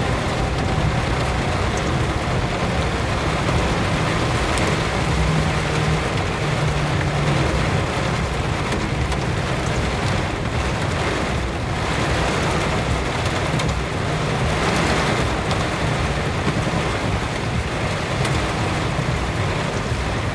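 Heavy rain pouring steadily onto a vehicle during a thunderstorm, with a low steady hum underneath.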